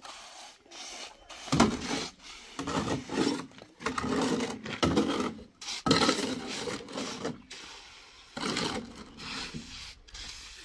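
Rough rasping scrapes in a series of five or six uneven strokes, each lasting up to about a second and a half.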